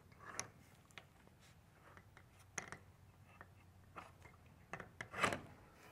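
Faint, scattered clicks and scrapes as a wooden hog wire fence panel is worked by hand onto its post, its metal screw eyes knocking against the hooks, with one louder scrape about five seconds in.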